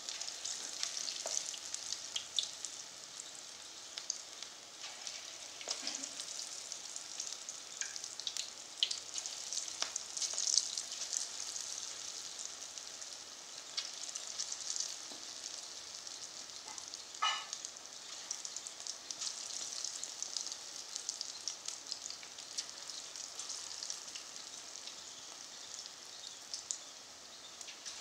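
Pakora batter deep-frying in hot mustard oil in a kadhai: a steady high sizzle with scattered pops and crackles as more small lumps of batter are dropped in.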